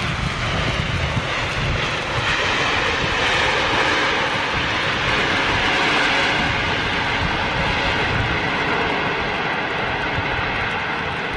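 Jet airliner's engines in reverse thrust on the landing roll, a loud steady rush that swells over the first few seconds and eases off toward the end.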